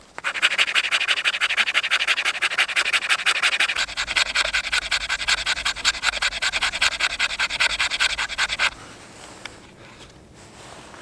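Knife blade scraping rapidly down a stick of fatwood over a piece of birch bark, fast repeated strokes that raise fine shavings for fire tinder. The scraping stops about three-quarters of the way through.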